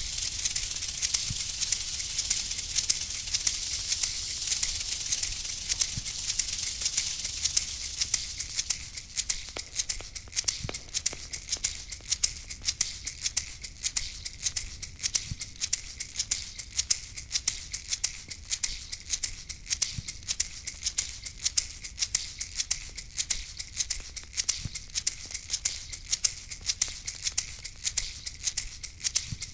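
A rattle shaken in a fast, steady rhythm of crisp strokes over a high hiss. The hiss thins out about eight seconds in.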